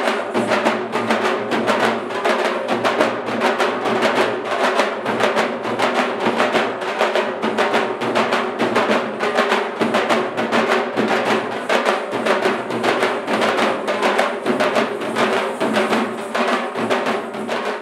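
Drum music: a rapid, steady beat on drums runs throughout.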